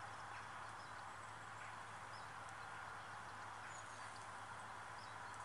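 Quiet field ambience: a steady low hiss of background noise with a few faint, short bird chirps scattered through it.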